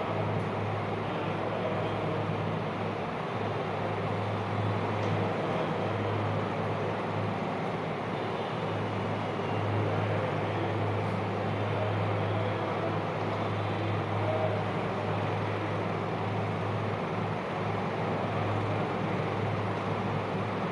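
Steady background noise with a constant low hum and no speech.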